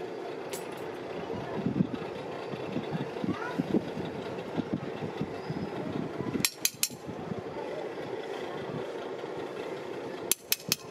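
Steady rushing noise of a fired crucible furnace melting aluminium. Sharp metal clinks of long tongs against the crucible come in quick groups of about three: shortly after the start, past the middle, and near the end.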